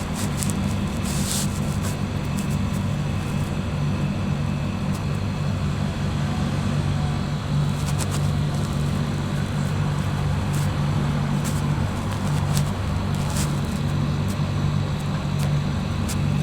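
Refrigerator running with a steady low hum, with scattered faint clicks and ticks.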